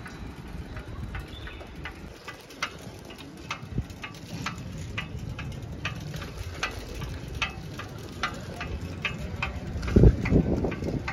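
A vehicle's turn-signal indicator ticking steadily, about two to three clicks a second, over low road rumble while the vehicle turns. A loud low thump about ten seconds in.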